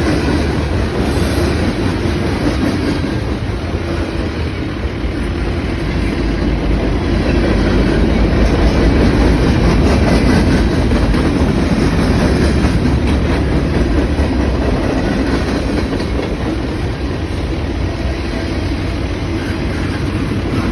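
Freight train rolling past, a steady, loud rumble of wheels on rail that swells a little toward the middle.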